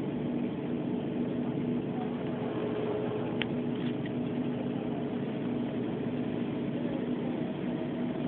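Bus cabin noise: a steady engine hum and road rumble, with a brief click about three and a half seconds in.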